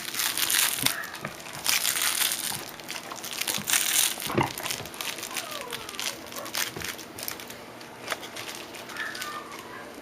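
Labrador puppies chewing and pawing crinkly toys, giving dense, irregular crinkling and rustling that is busiest in the first half, with a couple of faint high whines.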